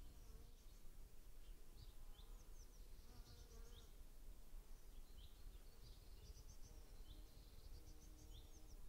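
Faint outdoor meadow sound: a flying insect buzzing as it passes, coming and going, over many short high chirps and a low rumble of wind on the microphone.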